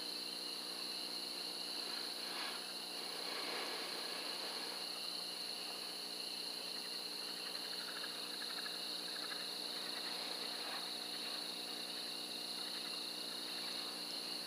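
A steady outdoor chorus of insects: one continuous high-pitched trill, with fainter pulsing chirps about halfway through.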